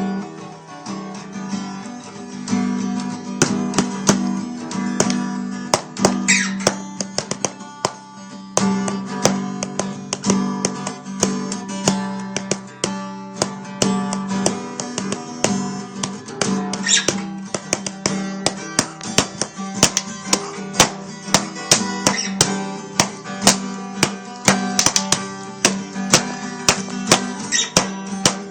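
Acoustic guitar being played, a low note ringing on under plucked and strummed notes, with many sharp percussive taps coming thicker in the second half.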